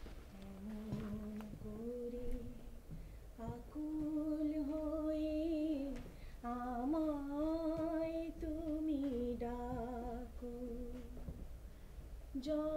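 A woman singing a slow, unaccompanied melody in long held notes that slide between pitches.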